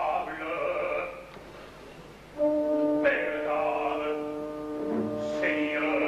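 Opera excerpt: a voice singing over a soft accompaniment, then about two and a half seconds in the orchestra comes in loudly with a long held chord, with the voice singing over it.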